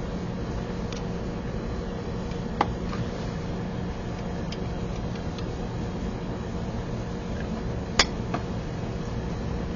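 Hard plastic-and-metal clicks of a drone's folding carbon-fibre arm hinge as the arm is unlocked and swung down. A sharp click comes about two and a half seconds in and the loudest about eight seconds in, with a few fainter ticks, over a steady low hum.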